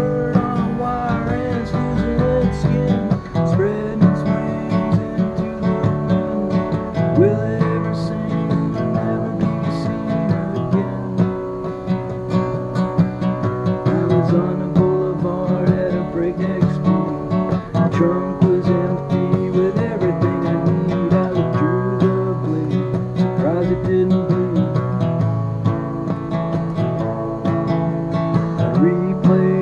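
Acoustic guitar strummed and picked steadily as the accompaniment to a live song.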